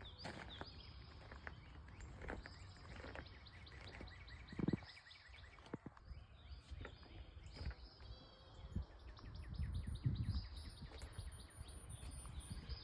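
Farmyard ambience in the morning: small birds chirping again and again over a low rumble, with a few short knocks.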